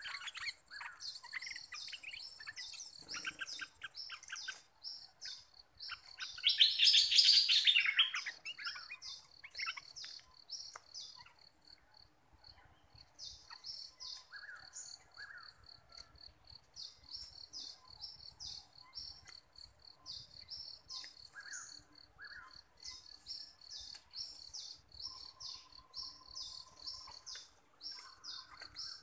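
Stripe-throated bulbuls calling back and forth in short chirping phrases, with one loud burst of song about six to eight seconds in. A caged decoy bulbul is being used to draw in wild birds. Behind them runs a fast, even ticking.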